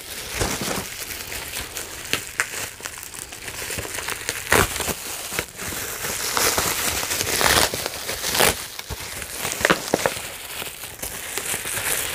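Plastic bubble-wrap packaging being handled and pulled open, crinkling and rustling continuously, with several sharper crackles.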